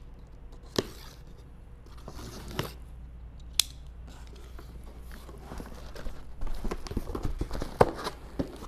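Opening a cardboard shipping box: a box cutter slitting the packing tape, with a few sharp clicks, then the cardboard flaps and packing inside being pulled open and handled, busier in the last two seconds.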